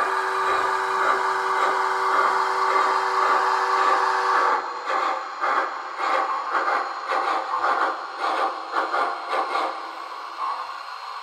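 MTH HO-scale Triplex steam locomotive model's onboard sound system: a chime steam whistle held for about four and a half seconds over steady chuffing, then the chuffing goes on alone at about three beats a second, a little softer near the end.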